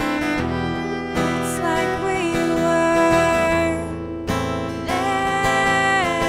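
Live acoustic music: a strummed acoustic guitar under a sung melody of long held notes that glide from one pitch to the next.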